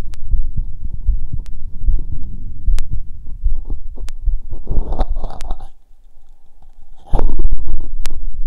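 Body sounds heard through a stethoscope: low, muffled thumping and rumbling. About five seconds in there is a burst of rubbing noise, then a brief quieter moment, and the low sound comes back abruptly about a second and a half later, typical of the chestpiece being lifted and set down on a new spot.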